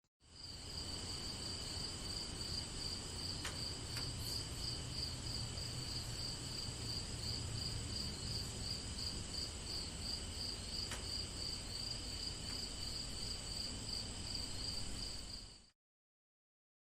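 A steady, dense chorus of insects chirping in rapid, even pulses over a low rumble. It starts just after the beginning and cuts off abruptly near the end.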